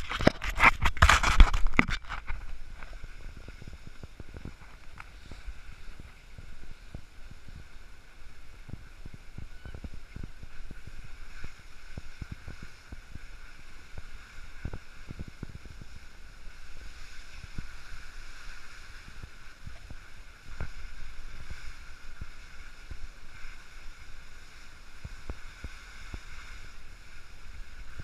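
Skis sliding over packed snow with wind rushing over a GoPro's microphone: loud buffeting and knocks for the first couple of seconds, then a steady rush scattered with many small scrapes and clicks.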